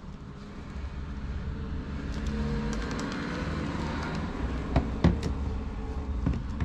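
A motor vehicle passing by, its noise swelling and fading, with a few sharp clicks and knocks in the second half.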